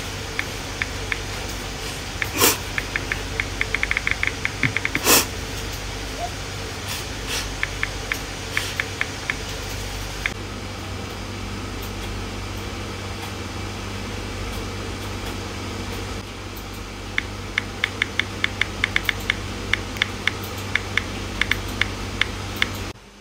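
Phone touchscreen keyboard clicking as a tweet is typed, quick runs of taps of about four or five a second, twice: about two seconds in and again from about seventeen seconds in. Two short sniffs come near the start, over a steady low hum.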